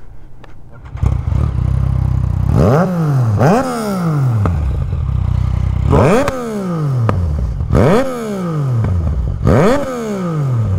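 A Yamaha motorcycle engine starts about a second in and idles, then is blipped five times, each rev rising quickly in pitch and dropping slowly back to idle.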